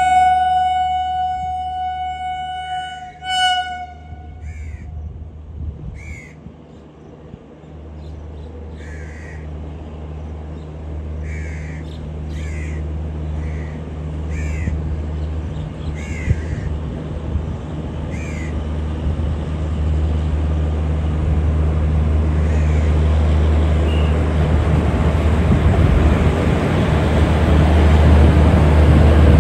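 Indian Railways electric locomotive sounding its horn: one long blast of about three seconds, then a short second blast. Crows caw repeatedly after the horn, while the train's rumble grows steadily louder as it draws near and runs past.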